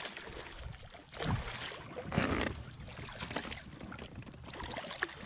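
Water splashing as a hooked bass thrashes at the surface beside a kayak, with a few louder splashes in the first half.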